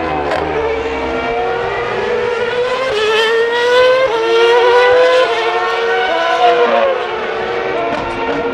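Formula One cars' V8 engines accelerating out of a slow hairpin, several overlapping. Each climbs in pitch and drops back in steps as it shifts up.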